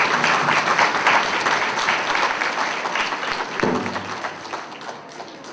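Audience applauding, the clapping gradually dying away toward the end.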